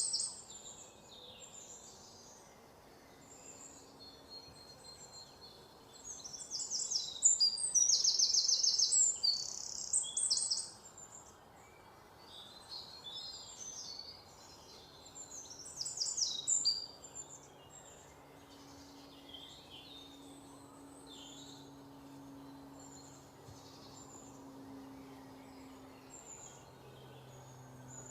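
Small birds chirping and trilling in quick, repeated high phrases, loudest about six to ten seconds in and again around sixteen seconds, with a faint low hum underneath in the second half.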